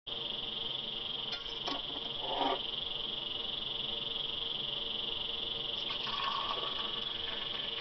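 Steady high-pitched insect chorus, crickets or similar, running on without a break. A few light knocks and clinks come in the first seconds and again a little after the middle, fitting a steel pan being handled on the stove.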